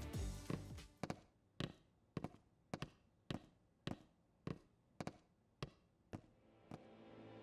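Footsteps walking at a steady pace, about two sharp steps a second, growing fainter near the end.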